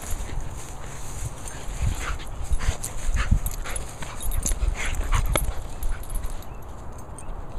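Sealyham Terrier dog making a quick run of short sounds in the middle, over a steady low rumble.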